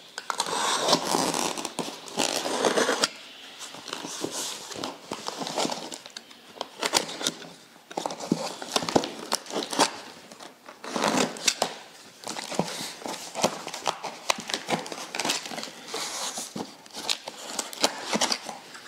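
Box cutter slicing through packing tape on a cardboard box: a long scratchy rasp for the first few seconds, then irregular scraping, clicks and crinkling as the blade runs along the seams and the tape and flaps are worked loose.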